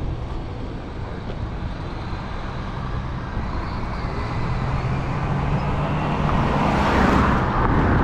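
Car driving on a country road, heard from a camera mounted outside on the car: steady tyre and engine rumble with wind on the microphone, growing louder toward the end.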